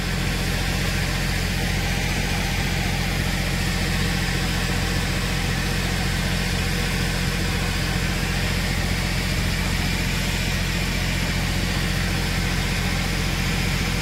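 Engine idling steadily: an even low hum with a hiss over it.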